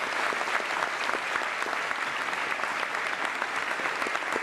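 Large audience applauding, a dense, steady clapping of many hands, some close by.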